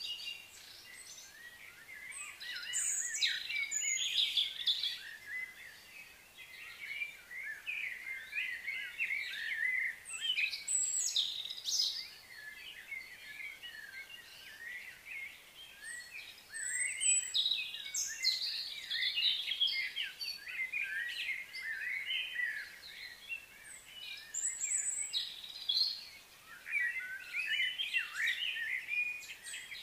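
Small birds chirping and twittering in busy bursts a few seconds long, with quieter gaps between them.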